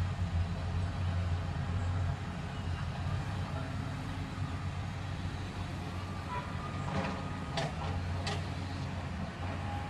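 Caterpillar hydraulic excavator's diesel engine running steadily at a distance while it digs, with a few sharp knocks between about seven and eight and a half seconds in.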